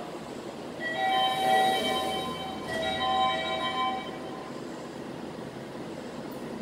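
Electronic departure chime on the subway platform: a short melody of clear bell-like tones, played in two similar phrases, signalling that the train's doors are about to close. Steady station noise runs underneath, and the chime stops about four and a half seconds in.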